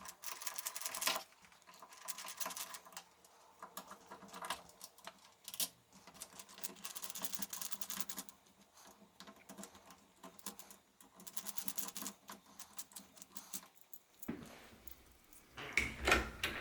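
Small metallic clicks and scraping in irregular bursts as a screwdriver backs out the Phillips screws of a door lock and the loosened lock parts rattle, with a louder bout of handling near the end as the lock comes apart.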